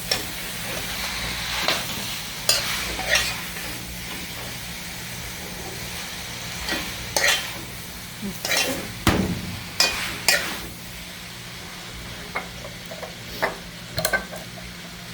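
Boiled chow mein noodles being stirred and tossed in a hot pot of frying seasoning: a steady sizzle with a utensil scraping and clicking against the pot, and a ringing clang of metal at the very end.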